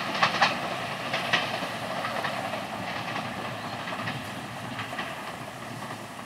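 Passenger train's wheels clacking over rail joints as it moves away: a few sharp clacks in the first second and a half, then a steady noise that slowly fades.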